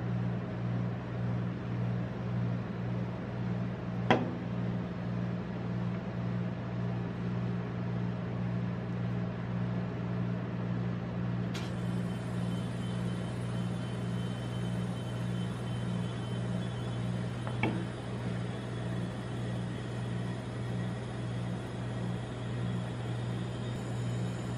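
Steady low hum of the ice-cream-roll machine's refrigeration compressor under its steel cold plate. A sharp knock comes about four seconds in, and a fainter one later.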